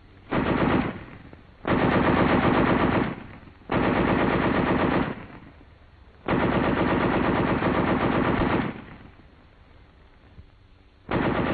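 Tank machine guns firing long bursts at infantry targets: four bursts of about half a second to two and a half seconds, with short pauses between them, and a fifth burst starting near the end.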